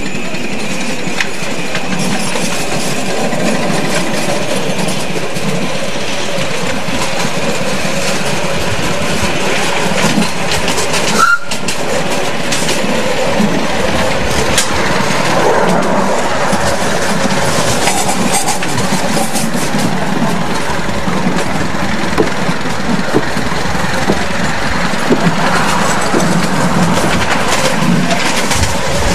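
Ride-on miniature railway train running along its ground-level track, heard from aboard: a steady rolling rumble with small clicks of the wheels over rail joints and points.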